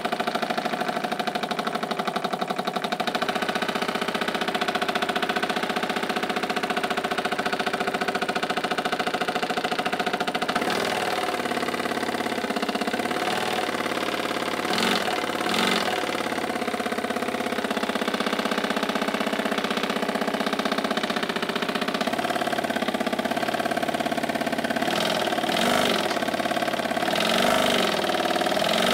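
Small homemade oscillating ('wobbler') model engine running fast, with a rapid, even beat of its strokes. Its note wavers a few times as the speed shifts.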